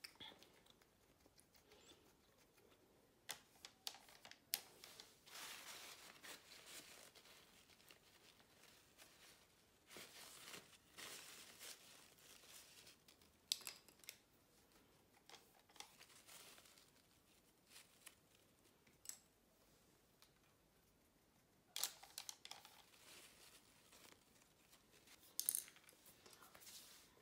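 Faint paper crinkling and rustling, with scattered small clicks and knocks of objects being handled and set down on a table.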